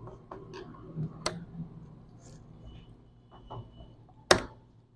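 Light plastic clicks and snaps as the HP Pavilion G4 laptop keyboard's retaining clips are pried free of the top case, with a sharp snap a little over a second in and the loudest one near the end.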